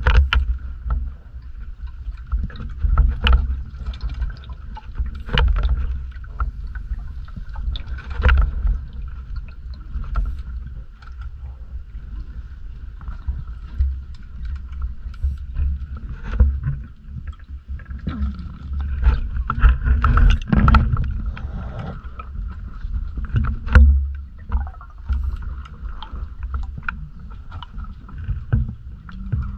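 Underwater recording noise from a diving camera: a low rumble that swells irregularly every few seconds, scattered sharp clicks and knocks, and a faint steady high hum.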